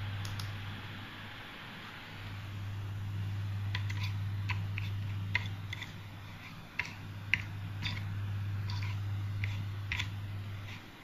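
A 3D-printed haptic paddle swung back and forth by hand, its mechanism giving irregular light clicks and ticks several times a second over a steady low hum.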